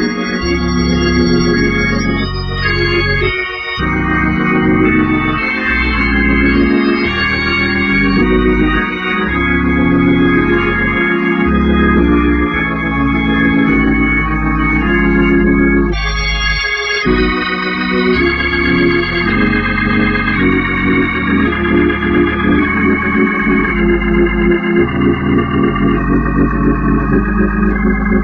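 Two-manual Hammond-style drawbar organ playing held chords that change about every second. Over the last few seconds the sound pulses rapidly and evenly.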